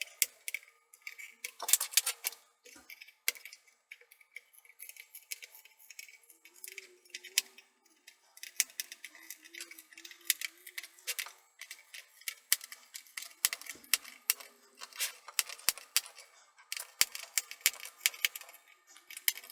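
Rapid, irregular clicking and scraping of a small flathead screwdriver digging and prying at a laptop's rubber foot strip and plastic case.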